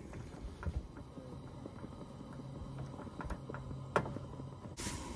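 Faint scattered clicks and light knocks of cooking gear being handled at a camp stove, with one sharper click about four seconds in. Near the end, wind starts rushing on the microphone.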